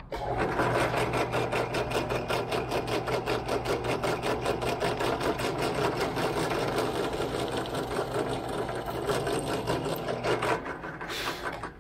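Benchtop drill press running and drilling through a hinge into a wooden rudder pedal: a steady motor hum with a fast, even ticking. The motor stops about ten and a half seconds in, followed by a short hiss.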